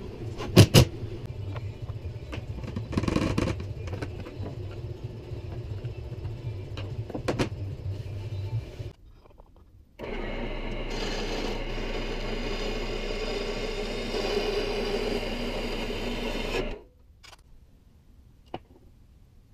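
Cordless impact driver working on a plywood panel in short bursts with clicks. Then a horizontal metal-cutting bandsaw runs steadily for about seven seconds, cutting through an aluminum bar, and stops suddenly. After that it is near quiet, with one small click.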